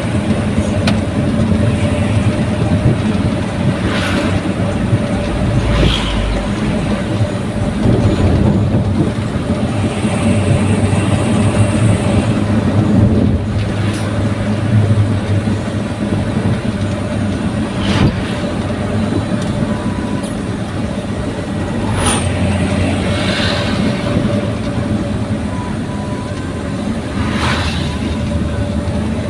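Daihatsu Gran Max pickup's engine and aftermarket exhaust running at a steady pace, a constant low drone, with a few short knocks along the way.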